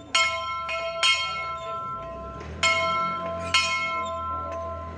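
A metal work bell struck again and again, each stroke sharp and ringing on, about two strokes a second with a short break near the middle. It is the bell rung to signal weeding time for the workers.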